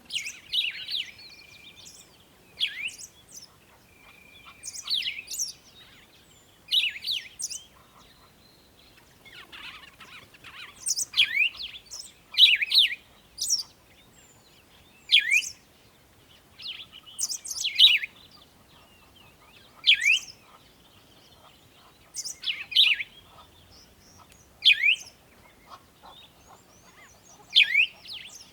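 Birds singing: a loud phrase of quick, sharply falling high notes repeats every two to three seconds, with fainter chirps and twitters in between.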